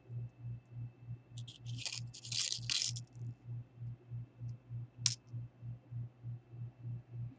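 Handling of a laptop's screen assembly: about a second and a half of rustling and scraping of plastic parts starting about a second and a half in, then one sharp click about five seconds in. A low hum pulses about four times a second underneath.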